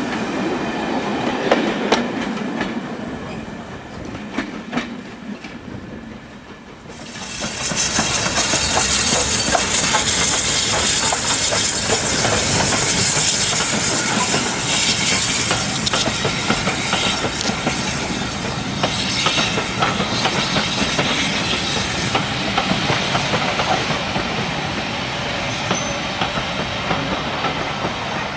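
Railway coaches rolling past with the clickety-clack of wheels over rail joints, fading away; then, about seven seconds in, a BR Standard 9F steam locomotive passing with loud steam hiss, its coaches clattering along behind it.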